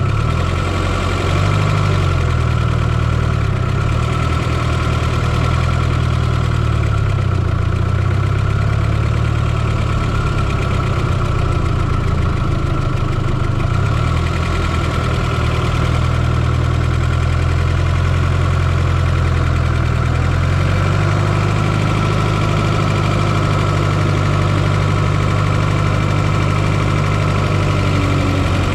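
Fiat Coupe 2.0 16V turbocharged four-cylinder engine running steadily, heard up close from inside the engine bay, with a steady high whine over its low drone and a slight change in engine note about two-thirds of the way through.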